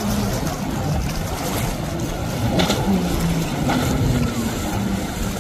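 Jet ski engine running at speed, its pitch wavering up and down, over a constant hiss of spray and wind. The hull slaps the chop twice near the middle, about a second apart.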